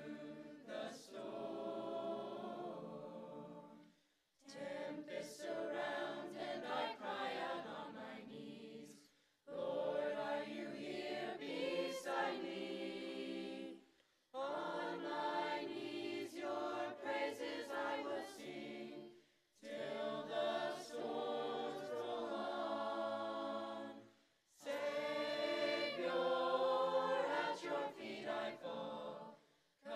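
Mixed-voice teenage choir singing a cappella, in sung phrases of about five seconds, each followed by a brief pause of near silence.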